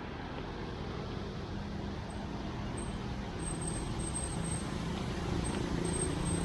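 Road traffic: a steady rumble of passing vehicles with a low engine drone, growing slowly louder.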